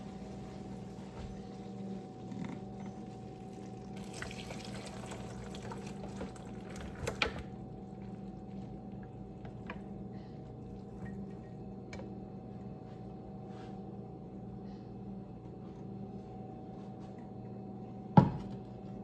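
Hot browned ground beef and its grease being poured into a strainer, with grease trickling and dripping through and small clicks of metal utensils, over a steady low hum. A single sharp clank near the end.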